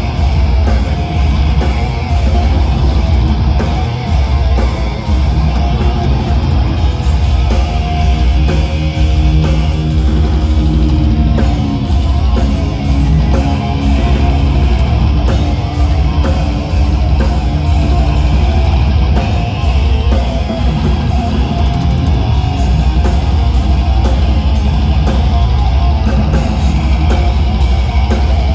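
Thrash metal band playing live: distorted electric guitars, bass and drum kit, loud and steady, with a heavy boom in the low bass.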